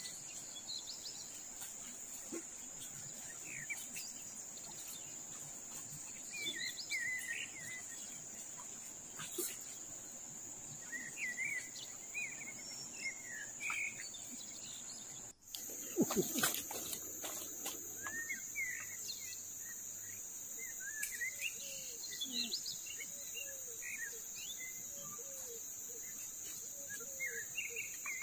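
Tropical forest ambience: insects drone steadily at a high pitch while birds give short chirping calls in clusters. Just after halfway there is a brief burst of knocks and rustling, the loudest moment, and a lower call then repeats through the second half.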